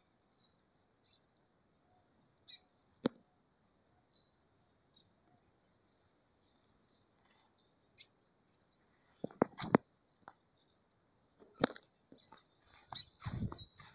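Small birds chirping faintly and intermittently, with a few sharp knocks scattered through, the loudest near the end.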